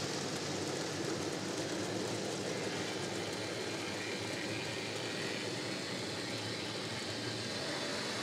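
N gauge model train of tank wagons rolling along the track, a steady rolling noise from the wheels and running gear.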